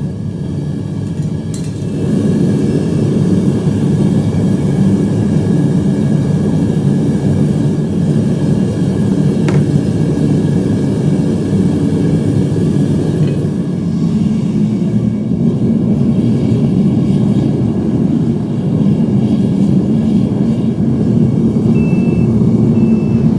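Gas-fired melting furnace burning at full power, a steady, loud, deep roar from the burner flame.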